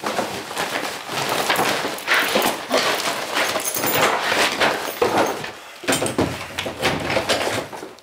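Rustling and bumping of a hurried scuffle at a door: a paper shopping bag being rummaged through and jostled, with knocks and thuds against the door.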